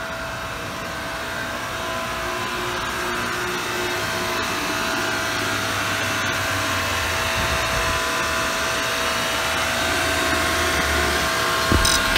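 Electric hot-water pressure washer running steadily, its motor and pump giving a constant hum and whine over the rush of its burner firing, growing gradually louder.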